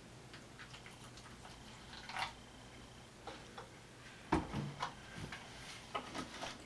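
Vinegar poured from a plastic jug, dripping and trickling faintly into a plastic bowl. A dull knock a little past halfway fits a container being set down on the table, and light clicks of plastic being handled follow.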